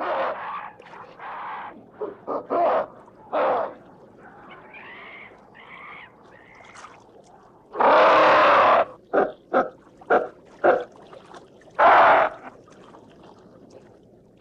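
Ape-man creature vocal sound effects: a string of short grunts and barks, some warbling hoots about four to six seconds in, and two loud, longer screams about eight and twelve seconds in.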